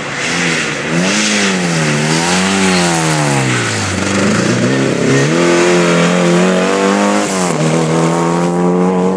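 A rally car's engine revving hard as the car drives past at speed, its pitch rising and falling with throttle and gear changes. The pitch sinks to its lowest about four seconds in as the car slows, then climbs and holds high, with a sudden drop at a gear change about seven and a half seconds in.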